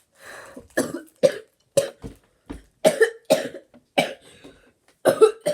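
A girl's voice in a run of about ten short, sharp excited outbursts, each a fraction of a second long and louder than her talking.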